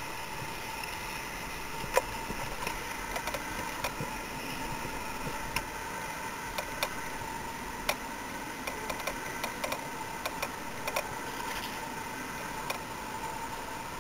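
Handling noise from a rod, reel and kayak while a fish is played: scattered light clicks and knocks, irregularly spaced and clustered after the middle, over a steady hiss with a faint hum.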